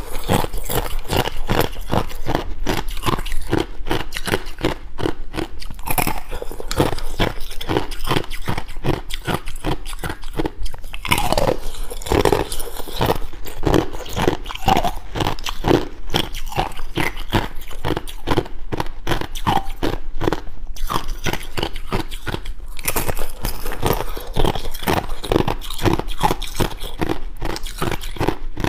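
Thin sheets of ice bitten and chewed close to the microphone: a steady run of sharp, brittle crunches and crackles, several a second.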